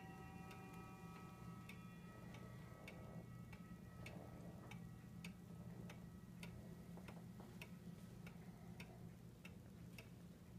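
8-day weight-driven wall clock ticking steadily, a little under two ticks a second, over a low steady hum. The last ring of its chime rods fades out over the first few seconds.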